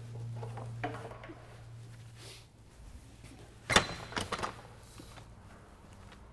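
Steel warehouse door opened by its push bar: one sharp loud clack as the bar releases the latch, then a few lighter clicks as the door swings open, over a steady low hum. Softer footsteps on the concrete floor come before it.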